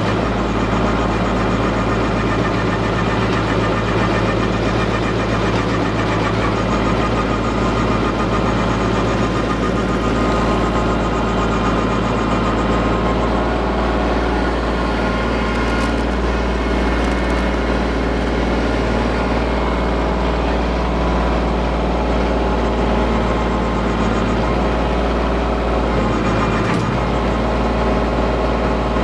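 Woodland Mills WG24 PTO stump grinder at work, its 24-inch cutter flywheel driven at 540 rpm from the tractor's PTO, chewing into a stump and throwing chips and dust. The tractor engine runs steadily under load beneath the grinding.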